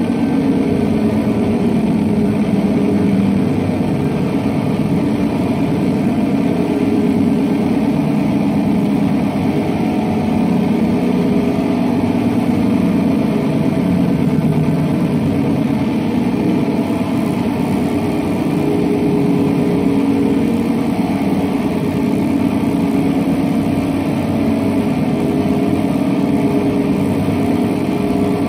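Electric guitar run through two chains of effects pedals, producing a dense, steady low drone with a rapid flutter that holds throughout.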